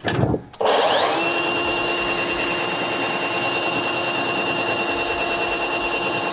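A cordless drain snake machine starting up after a brief knock: its motor rises quickly in pitch and then runs steadily as its spinning cable works into the bathroom sink drain pipe.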